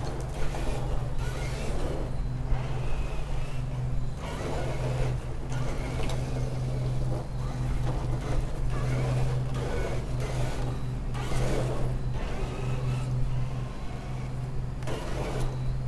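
Traxxas K5 Blazer RC crawler driving in short spurts: its electric motor and drivetrain whir for a second or two at a time, over a steady low hum.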